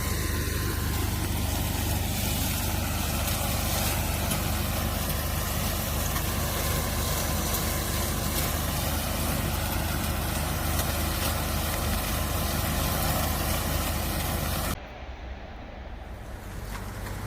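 Garlic stem cutting machine running with a steady low mechanical hum. The sound cuts off abruptly near the end and gives way to quieter wind-like noise.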